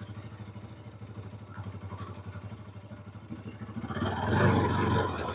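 Motorcycle engine running at low speed as the bike is ridden along a dirt track, an even rapid pulsing that gets louder about four seconds in.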